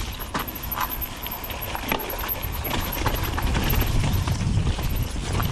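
Mountain bike rolling down a dirt trail: tyre noise over the ground and irregular rattling knocks from the bike over bumps, over a steady wind rumble on the microphone.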